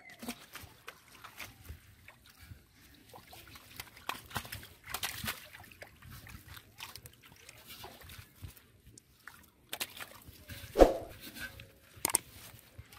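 Shallow muddy drain water splashing and sloshing as fish thrash and are grabbed by hand, in many small scattered splashes. Near the end comes one short, clearly louder sound.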